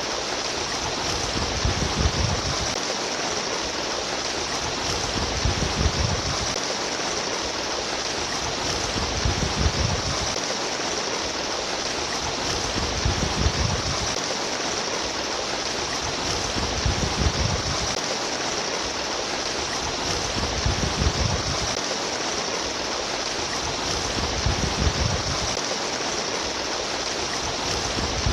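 Running stream water babbling and rushing steadily, with a low rumble that swells about every three to four seconds.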